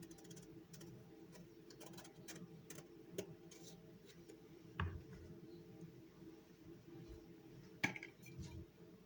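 Scattered light ticks and clicks over a faint steady hum, with two louder knocks about five and eight seconds in.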